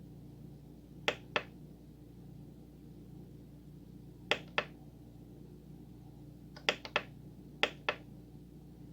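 Sharp plastic clicks of buttons being pressed on a Korg N264 keyboard's front panel, mostly in quick pairs: about a second in, at about four and a half seconds, and four more around seven to eight seconds. A faint steady hum lies underneath.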